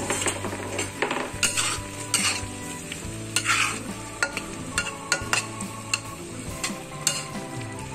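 Soy-based sauce with chicken and tofu boiling hard in a wok, bubbling and sizzling as it reduces, over a steady low hum. Scattered sharp clicks and a few short scrapes break through the bubbling.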